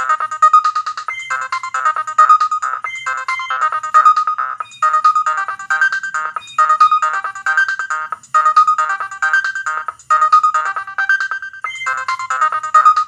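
Nokia 6010 mobile phone playing a ringtone: a fast electronic melody of short beeping notes, repeating in short phrases.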